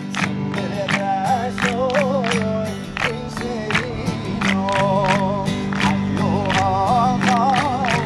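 Folk song sung to acoustic guitar, the voice holding long wavering notes, with a group clapping hands in a steady beat.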